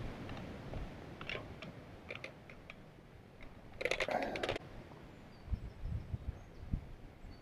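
Handling noise from a nylon fish weigh sack and hanging scale being readied to weigh a fish: scattered light clicks, one short rasp about four seconds in, and a few soft low thumps near the end.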